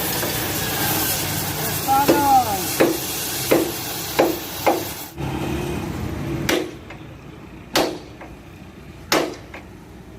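Hammer blows, about eight sharp strikes at uneven intervals, over steady workshop noise that drops away about five seconds in.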